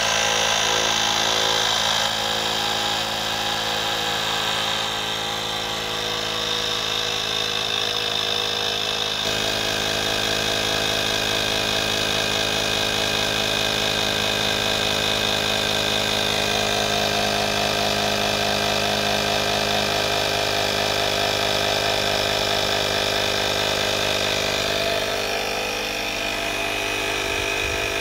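AstroAI A220B 12 V portable tire inflator running steadily at one even pitch, its small air compressor pumping up a car tire that reads just under 30 psi.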